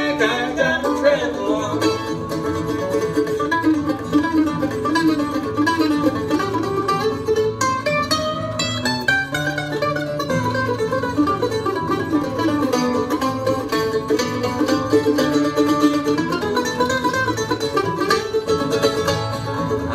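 Mandolin and acoustic guitar playing an instrumental break in a bluegrass song, quick picked notes over a steady strummed rhythm, with no singing.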